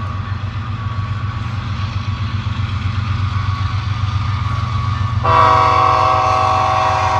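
A train rumbles by with a steady low churning. About five seconds in, its horn comes in suddenly as a chord of several steady tones and holds to the end.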